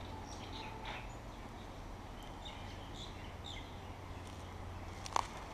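Forest birds chirping here and there in short, scattered calls over a steady low background hum, with a sharp click about five seconds in.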